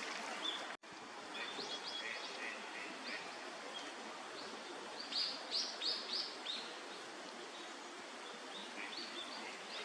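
Small birds chirping: short high calls scattered through, with a run of about five quick, louder, downward-sliding notes around the middle, over a steady background hiss of park noise.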